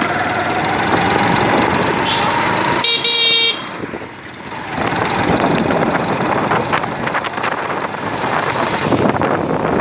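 Riding a motorcycle along a busy street: steady engine and traffic noise, with one short vehicle horn honk of about half a second, about three seconds in.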